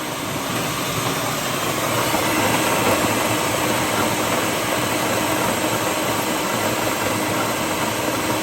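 Ninja Professional XL food processor motor running on its puree setting, the chopping blade grinding roasted cashews in the nesting work bowl. A steady, loud whir that builds slightly in the first couple of seconds, then holds.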